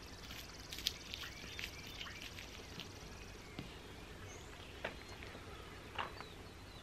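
Knife work on a beaver carcass as the backstrap is cut free: scattered faint clicks, one sharper about a second in. A faint high-pitched trill runs in the first half and stops about halfway through.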